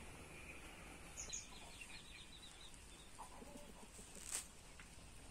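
Faint bird sounds: a quick run of high chirps just after a second in, then a short, soft, low cluck from a hen a little past three seconds. A single sharp click a little past four seconds is the loudest sound.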